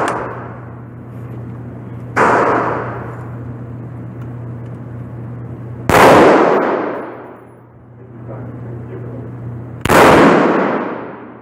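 Three shots from a .303 British Lee Enfield No.4 Mk 2 bolt-action rifle, about four seconds apart, each echoing for about a second in an indoor range. The first is weaker; the middle one is the loudest.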